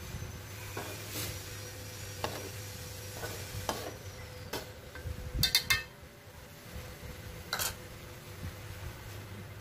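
Metal spatula stirring and scraping wet ground chili paste around an aluminium wok, with a faint sizzle, as the paste is dry-fried to cook off its water. Sharp clinks of the spatula against the wok come about halfway through and again near the end, over a low steady hum.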